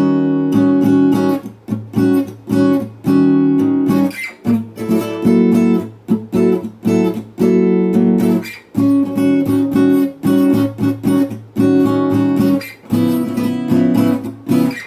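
Jasmine acoustic guitar, all-acoustic with no pickup, strummed: many quick chord strokes in a rhythm, ringing between brief stops.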